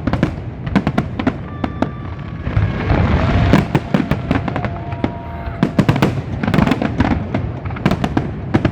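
Fireworks going off: a dense, rapid run of sharp cracks and bangs with crackling in between, and a few thin held tones in the middle.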